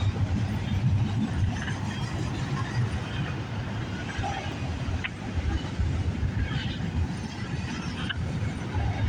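Intermodal freight train's container cars rolling past at speed: a steady low rumble of wheels on rail, with a few sharp clicks and knocks from the wheels and couplings.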